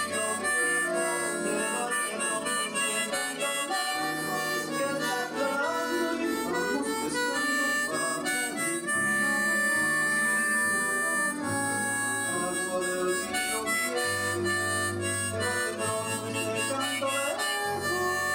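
Diatonic harmonica in C playing a bolero melody in the key of G, mixing held notes with shorter moving phrases, over an accompaniment with a bass line.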